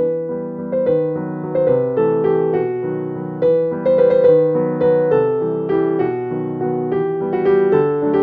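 Background piano music: a melody of struck notes over sustained lower tones, moving at a steady, unhurried pace.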